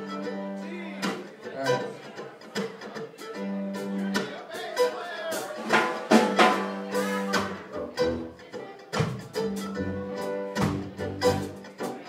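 Live band playing: acoustic guitars strumming over held keyboard chords, with sharp strums and hits throughout.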